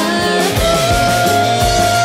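Background music: a band track with a steady beat and a long held melody note that starts about half a second in.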